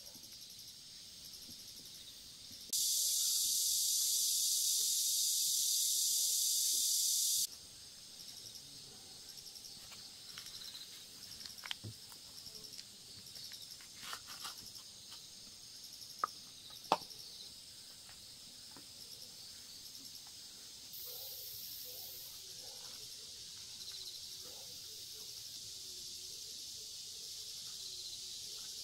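Outdoor insect chorus: a steady high-pitched chirring, with a much louder dense buzz cutting in about three seconds in and stopping abruptly about five seconds later. A few faint clicks or taps fall around the middle.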